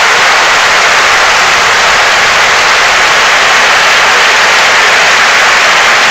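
Large football stadium crowd clapping steadily in a long, unbroken round of applause.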